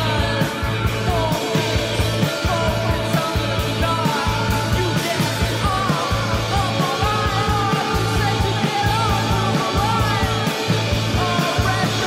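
A rock song playing, with a singer's voice over a steady, pulsing bass and drums.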